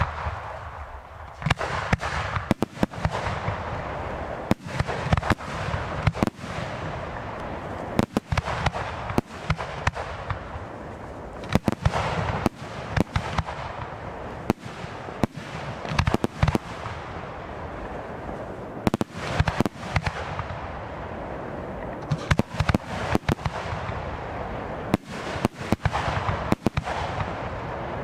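Fireworks display: a rapid, uneven run of sharp bangs from bursting shells, often several in quick clusters, over a constant noisy hiss.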